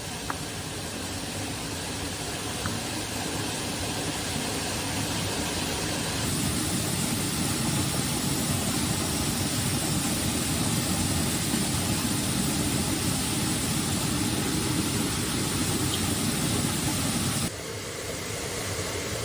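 Steady heavy rain, an even rushing hiss that grows slowly louder, then drops suddenly near the end.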